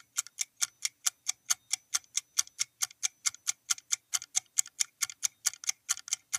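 Countdown timer sound effect: clock-like ticking, even and steady at about four ticks a second.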